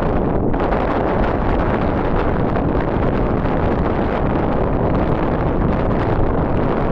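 Wind buffeting the microphone during a storm: a loud, steady rush of noise.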